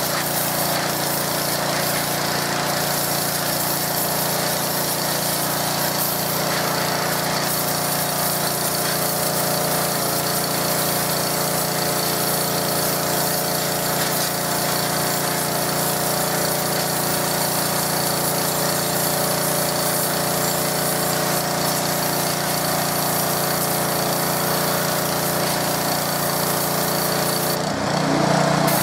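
McAllister 180 bar petrol pressure washer running steadily, its engine's even drone under the hiss of the high-pressure water jet.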